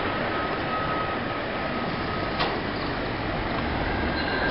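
Demag H285S hydraulic mining shovel running steadily: an even mechanical drone from its power unit and hydraulics during a travel-system check with the crawlers raised. A faint steady whine runs through the first half, and there is a single knock about two and a half seconds in.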